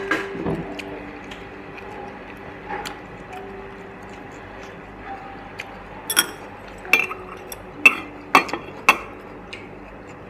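Metal ladle and utensils clinking against a glass bowl and the hotpot, about five sharp clinks in the second half.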